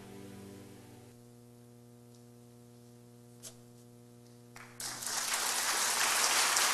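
The last notes of a song die away, leaving a steady electrical hum with a single faint click. About five seconds in, a loud hiss of static comes in and holds.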